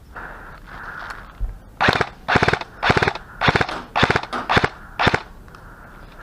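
Airsoft gun firing seven short full-auto bursts, each a rapid string of shots, roughly half a second apart, preceded by a single low thump.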